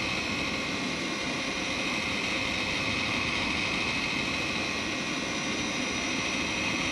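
Electric heat gun running steadily, its fan blowing hot air with a steady whirring and a high whine, as it shrinks heat-shrink tubing over spliced oxygen-sensor wires.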